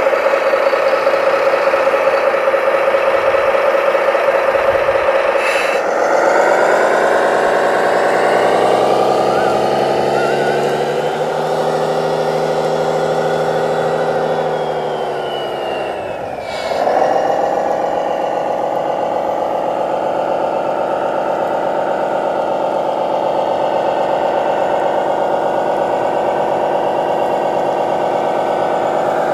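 Engine sound of radio-controlled model construction machines: a steady engine note that changes about six seconds in, sinks slowly in pitch, then picks back up about two-thirds of the way through.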